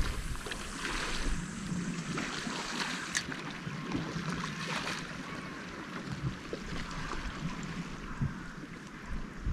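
Wind buffeting the microphone over small waves washing against a rocky shore, with a few short clicks.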